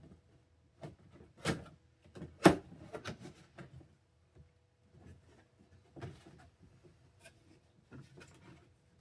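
Cardboard box being handled and opened: irregular rustles, scrapes and knocks, the loudest knock about two and a half seconds in.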